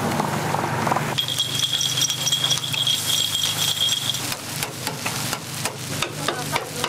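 Takoyaki batter sizzling in a hot margarine-greased takoyaki pan over a steady low hum, with a thin high tone in the first half. From about four seconds in, a run of sharp metal clicks and scrapes as a metal bench scraper works across the pan.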